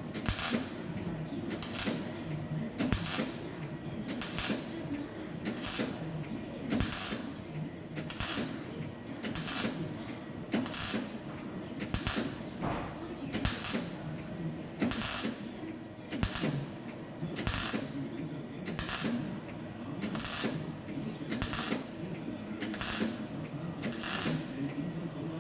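Electric welding in short, evenly spaced bursts: a crackling hiss about every 1.3 seconds over a steady low hum.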